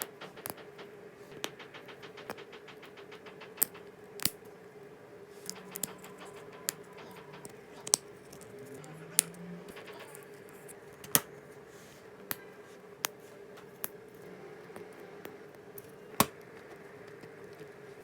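LEGO Technic plastic pieces being handled and pressed together: irregular sharp clicks and small rattles, over a steady hum.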